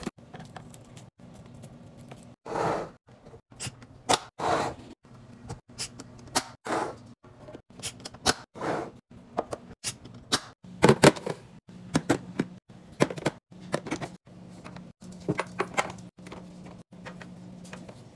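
Food being set by hand into clear plastic fridge bins and a glass storage container: a string of light knocks and clicks with short plastic rustles in between, and a faint steady low hum underneath.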